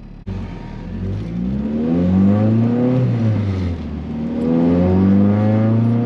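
G23BK VTEC four-cylinder engine accelerating hard with a loud exhaust, its revs climbing for about three seconds, dropping back, then climbing again as the car pulls toward the VTEC range.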